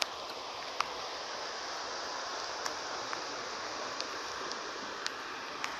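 Muddy flash-flood water rushing as it pours into and fills a small dam's reservoir, a steady even roar. A few short sharp clicks sound over it, one right at the start and others about a second, three seconds and five seconds in.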